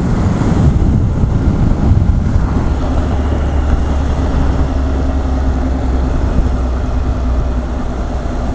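Motorcycle cruising at highway speed: a steady engine hum under wind rush on the microphone. The buffeting is heaviest in the first couple of seconds, then settles.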